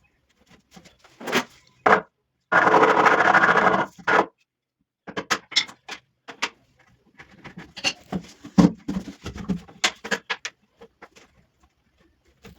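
Carpentry work sounds: a power drill running for about a second and a half, with scattered knocks and taps of wood and tools before and after it.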